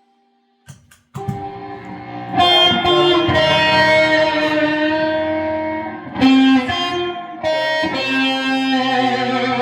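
Guitar music, an electric guitar playing sustained notes and chords, starting about a second in after a brief silence.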